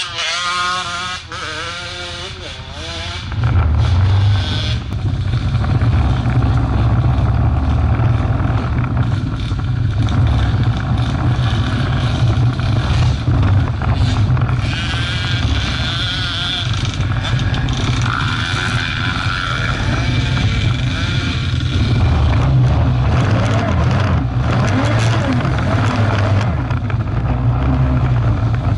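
Quad bike (ATV) engines revving with a wavering pitch, then from about three seconds in a quad running under way over a muddy trail, buried in a heavy low rumble of wind on the microphone.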